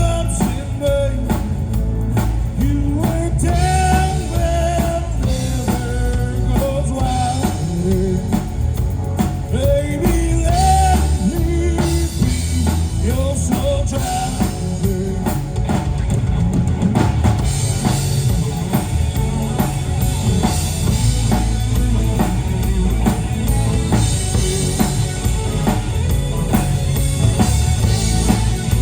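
Rock band playing a song with drums, bass and guitar. A sung vocal line runs through roughly the first half, and the band carries on instrumentally after that.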